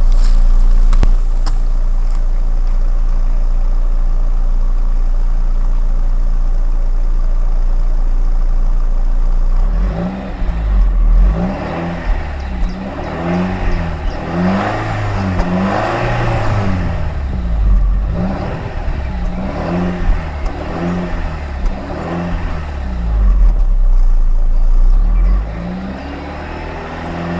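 Stock 1996 Audi A4 B5 1.6 inline-four engine and exhaust idling steadily for about ten seconds, then revved in a series of short throttle blips, each rising and falling in pitch, with one longer rev near the end.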